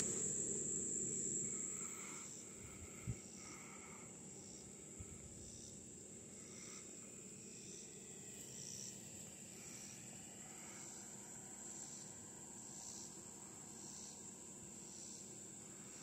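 Faint insects singing in the grass: a steady high trill with a short chirp repeating a little under twice a second. A soft rustle fills the first two seconds, and there is a single knock about three seconds in.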